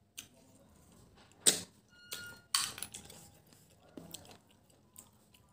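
Mouth sounds of eating snails: about four sharp sucks and smacks as snail meat is sucked out of the shells, one with a brief thin whistle.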